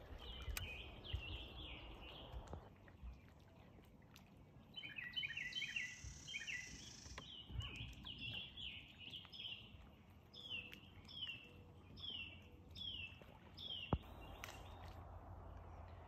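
Wild songbirds singing: runs of short down-slurred whistled notes, repeated one to three times a second, with a busier twittering burst in the middle. A faint low rumble runs underneath, and a single sharp click comes near the end.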